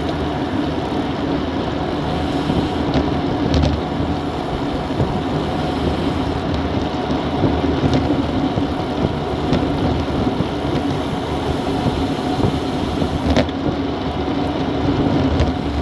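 Wind rushing over an action camera's microphone on a road bike moving at about 40 km/h, with road and tyre noise beneath; a few brief clicks.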